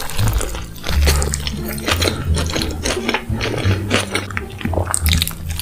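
Close-miked eating sounds from a bite of double bacon smash burger being chewed: many short mouth clicks and smacks, over background music with a bass line.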